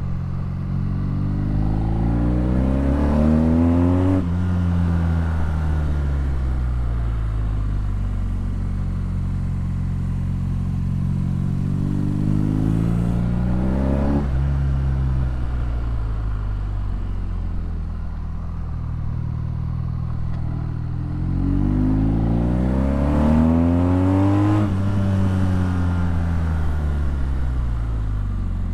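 BMW R nineT's boxer twin running through an Akrapovic exhaust while riding, revs climbing under throttle three times, near the start, midway and near the end. After each climb the pitch drops sharply, then falls slowly as the throttle closes and the engine slows the bike.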